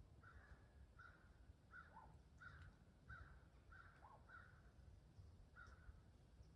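Faint bird calls from the woods: a run of about eight short calls, roughly one every two-thirds of a second, with two lower notes among them, over a low rumble.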